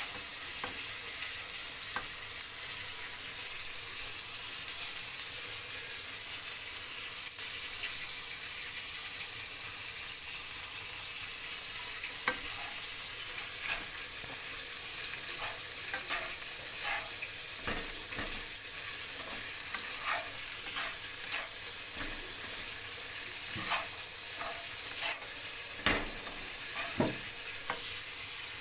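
Frozen fried rice sizzling in a frying pan with a steady hiss, while a spatula stirs it and scrapes and knocks against the pan, more and more often in the second half.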